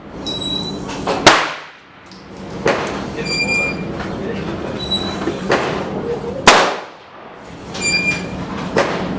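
Rifle shots: two loud reports, about a second in and about six and a half seconds in, each ringing out for about half a second, with fainter sharp cracks between them.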